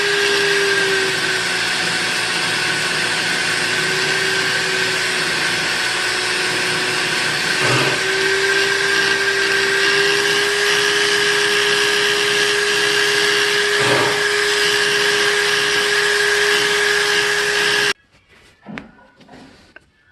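Electric buffing machine running steadily, its buffing wheel working a spoon knife, with a steady motor hum that sags slightly at times. The sound cuts off suddenly near the end.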